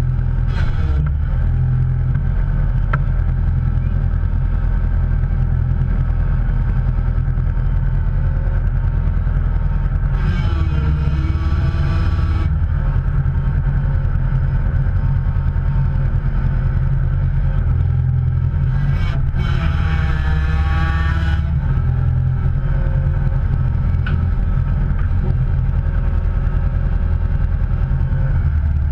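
A motor vehicle running, with a loud, steady low rumble throughout. About ten seconds in, and again from about nineteen seconds, wavering higher tones and hiss rise over it for two to three seconds each.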